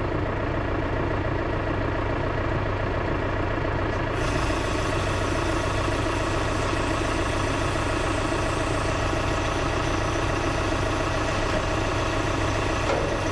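John Deere 6110M tractor engine idling steadily. About four seconds in, a steady hiss joins the engine sound.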